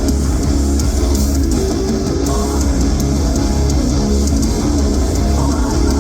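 A live metalcore band playing an instrumental passage: loud strummed electric guitars over bass guitar, with no vocals.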